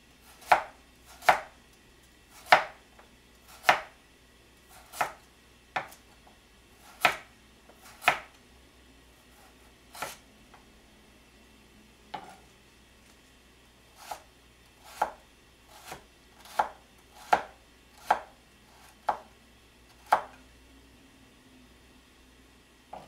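Kitchen knife chopping carrot into matchstick strips on a cutting board: single sharp chops about one a second, spaced more widely for a few seconds in the middle.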